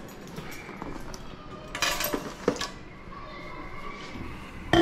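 Handling noise of carried items: light clinks, a rustle about two seconds in, and a sharp knock near the end.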